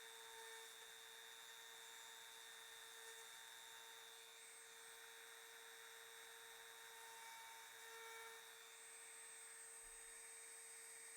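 Near silence: a faint steady electrical hum with a high whine over background hiss.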